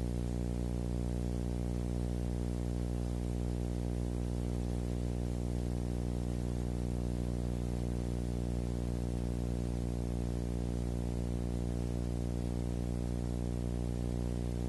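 A steady, unchanging low electronic hum with many evenly spaced overtones and a faint hiss above it.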